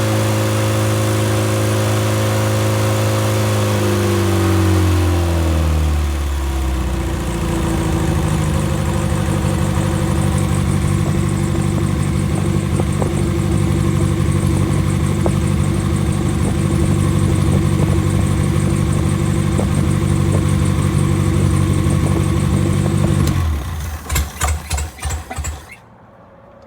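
Freshly rebuilt engine, its ignition timing only set roughly, running steadily at a raised speed. It slows down to idle a few seconds in and idles evenly. Near the end it is switched off and coughs a few times as it runs down and stops.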